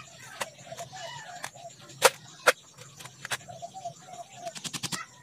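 Sharp knocks of cut bamboo sticks being handled and knocking together: a few single knocks, two loud ones about two seconds in, and a quick run of taps near the end. Hens cluck in the background.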